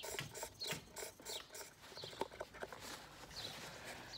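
Handling noise: irregular small clicks and rubbing as the old paper oil-filter element is worked out of its plastic housing cap, with paper towel rustling against it near the end.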